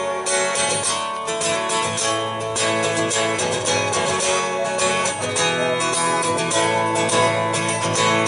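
Acoustic guitar strummed in a steady rhythm, ringing chords with no voice over them.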